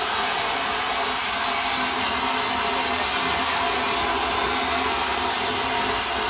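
Homemade wet sandblasting (vapor blasting) cabinet running: a steady hiss of compressed air driving a water and glass-bead spray against a Yamaha Nouvo motorcycle crankcase, over a low steady hum.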